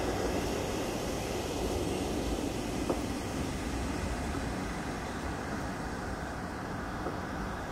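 Steady, dense low rumbling noise, with one short click about three seconds in.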